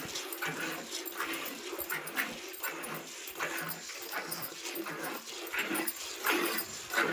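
Cow being milked by hand: streams of milk squirting into a pail in a steady rhythm of about two squirts a second.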